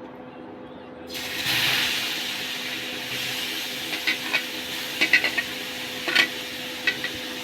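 Grated carrots hitting hot ghee in a kadhai: a sizzle starts suddenly about a second in and runs on steadily, with a few light clinks of a spoon against the pan as they are stirred. A faint steady hum lies underneath.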